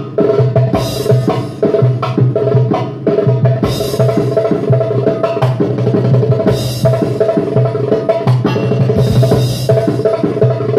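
Darbuka, a metal-bodied goblet drum, played in a fast solo: a dense, unbroken stream of rapid hand strokes mixing deep and sharp hits.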